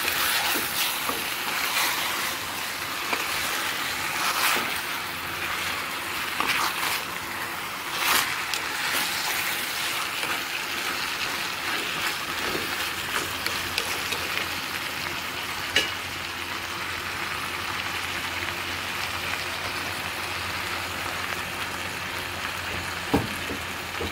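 Chicken sizzling in an earthenware pot on the stove: a steady hiss with scattered crackles and a few sharp knocks.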